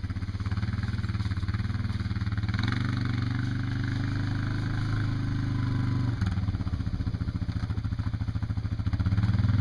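A small engine running steadily with a low, fast-pulsing drone that shifts slightly about six seconds in.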